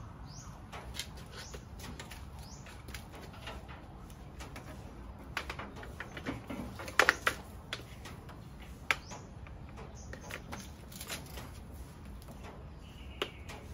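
Scattered light clicks, knocks and rustles of tools and stored objects being handled and moved while rummaging, with the loudest cluster of knocks about halfway through.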